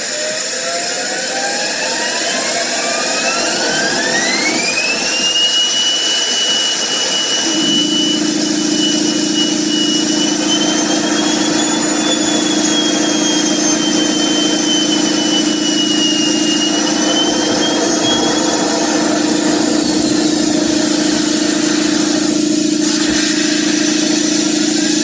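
Home-built JM50 jet turbine on a start attempt: a whine rises over about five seconds, then holds, wavering up and down, and fades out near the end. A steady lower hum joins about eight seconds in, and a fresh rising whine starts right at the end. The turbine fails to reach enough rpm to start.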